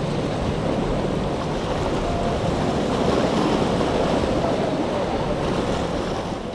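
Steady wind noise on the microphone over surf and waves, mixed with the low rumble of a large motor yacht's engines running through the inlet.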